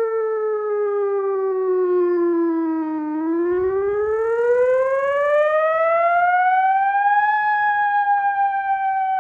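ATI HPSS-32 electronic tornado siren sounding its wail tone: the pitch falls for about three seconds, climbs for about four seconds, then begins to fall slowly again.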